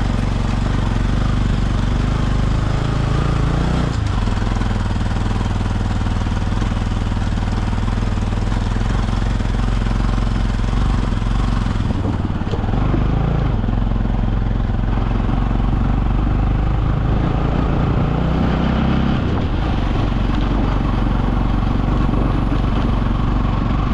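Motorcycle engine running steadily while riding over a rough, rocky dirt track, its pitch shifting a few times with the throttle, over a steady rushing noise.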